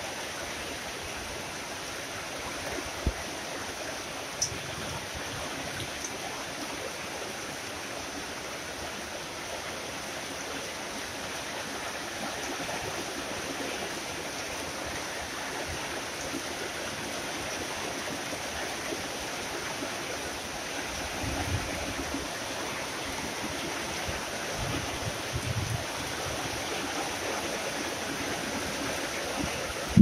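Steady tropical rain falling, an even hiss of many drops, with two sharper louder taps a few seconds in and a few low rumbling swells in the later part.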